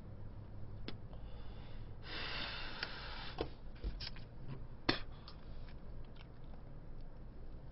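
A man smoking a cigarette: a breathy hiss lasting about a second, a little over two seconds in, among scattered small clicks and mouth noises, the sharpest about five seconds in. Quiet overall.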